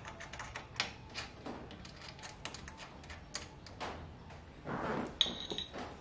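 Quiet metal clicks and ticks of a small steel open-end wrench working a hex nut on a door hanger-wheel bolt. Near the end there is a sharper metallic clink with a brief ring as the wrenches knock together.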